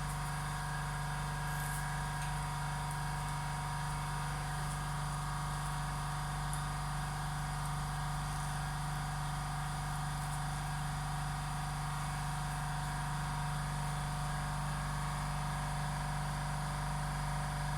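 Venus MK 42 cigarette-making machine running with a steady, even motor hum.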